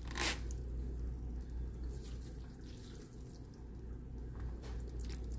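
Metal tongs handling wet spaghetti in a foam takeout container, with one sharp clack about a quarter-second in and a few soft clicks near the end, over a steady low hum.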